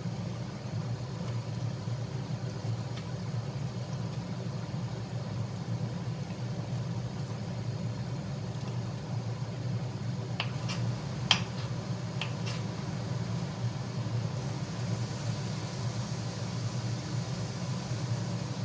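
Steady low mechanical hum, with a few faint clicks about ten to twelve seconds in.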